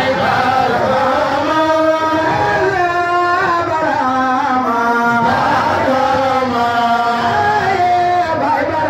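A solo voice singing a devotional chant into a microphone, holding long notes that slide and waver between pitches.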